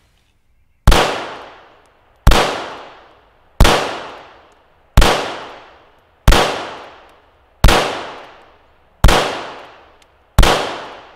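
Eight shots from a CZ vz. 38 double-action-only pistol firing .380 ACP, spaced evenly about one every second and a half, each shot ringing out and fading over about a second.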